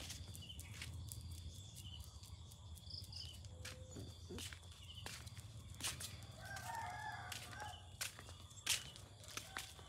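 A rooster crowing once, about two-thirds of the way through, over a steady low hum and many short clicks.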